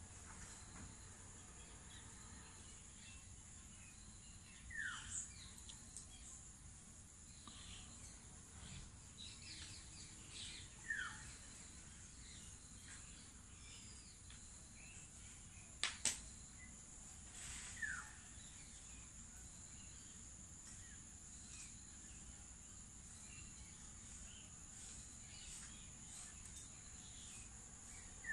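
A steady high-pitched insect drone, with a bird's short falling call heard four times, about every seven seconds, and one sharp click near the middle.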